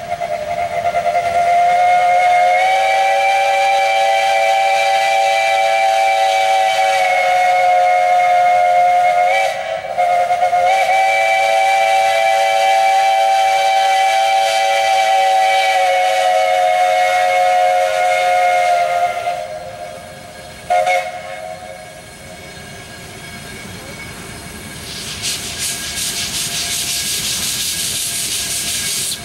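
Steam whistle of the Mount Washington Cog Railway's 0-2-2-0 cog steam locomotive #9 sounding a chord of several close tones. It gives two long blasts of about nine seconds each, then a short toot. Near the end comes high steam hissing as the locomotive gets under way.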